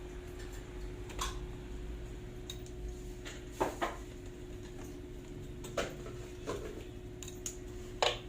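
Metal clinks and knocks of tools and parts while a mini melting furnace is taken apart, about six scattered strikes with a quick double clink in the middle and a sharp one near the end, over a steady hum.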